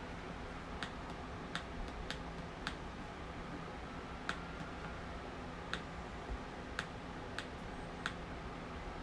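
Small oscillating USB desk fan clicking at uneven intervals, about one or two sharp clicks a second, over a faint steady hum. It is not running properly on its current USB supply.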